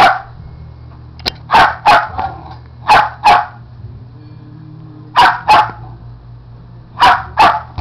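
Shetland sheepdog barking: short, sharp barks, mostly in quick pairs, repeating every second or two.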